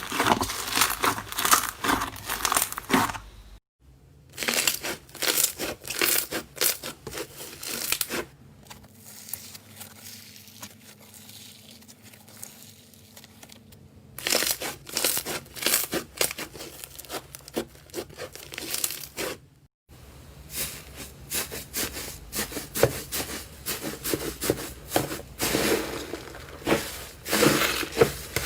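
Slime being squeezed and pressed by hand, making rapid, wet crackling clicks. It cuts off abruptly twice and goes softer for several seconds in the middle.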